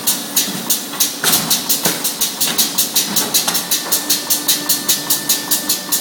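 Automatic salami clipping machine (CDO 250) cycling rapidly, each stroke a short hiss, about three to four a second, over a steady hum.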